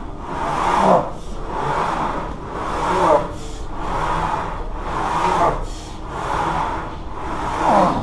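A man's heavy, rhythmic mouth breathing through a heavy set of machine squats: a breath about every second, with a louder forced exhale and a falling groan roughly every two seconds on each rep.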